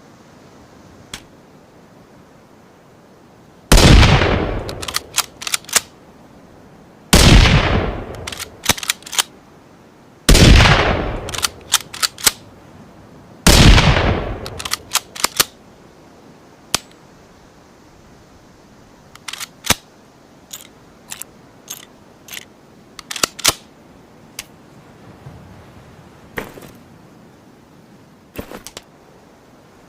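Ruger American bolt-action rifle shot sound effect: four loud shots about three seconds apart, each ringing out and followed by a quick run of sharp metallic clicks as the bolt is worked. In the second half come several more scattered clicks without shots.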